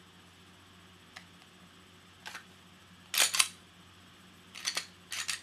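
Glock pistol being worked by hand: a series of sharp metallic clicks and clacks, faint at first, the loudest pair about three seconds in and three more near the end, as the slide is worked to clear the dummy round.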